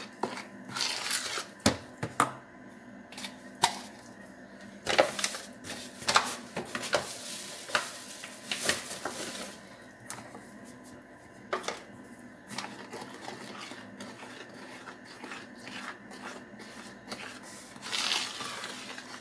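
A metal spoon stirs and scrapes a wet cornmeal batter in a plastic mixing bowl, with irregular clicks and soft scrapes as it knocks against the bowl.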